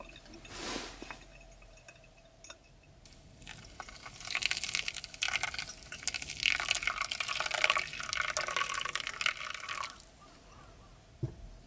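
Liquid being poured into a vessel for about six seconds, starting a few seconds in, after a brief swish near the start.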